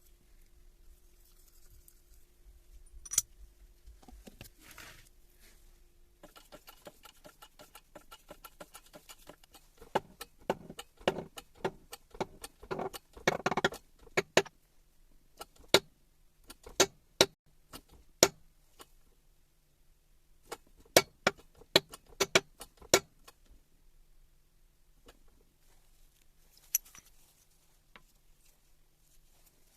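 Metal tools and parts clicking and clinking on a workbench: first a quick run of fine even ticks, then a series of sharp separate metallic clicks and knocks, before it goes quiet again near the end.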